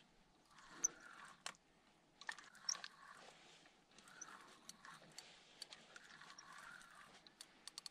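Faint, irregular clicks and taps with soft swishing, from a fishing rod and reel being worked while a hooked fish is played from a canoe.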